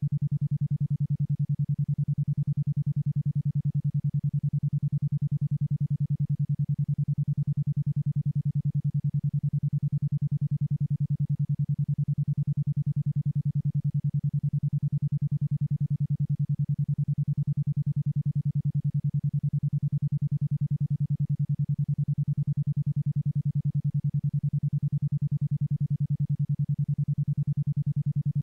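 A 10.2 Hz isochronic tone: a single low electronic tone pulsing on and off evenly, about ten times a second, at the alpha-wave rate.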